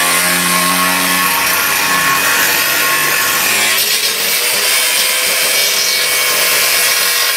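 Corded angle grinder cutting through a thick metal rock guard: a loud, steady grinding with the motor's whine throughout, its tone shifting about halfway through.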